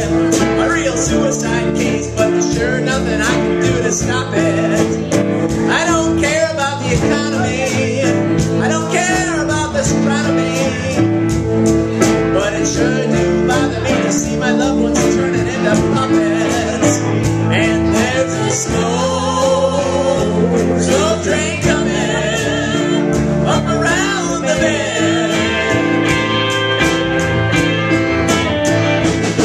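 Live band music: a country-rock song with guitar and singing.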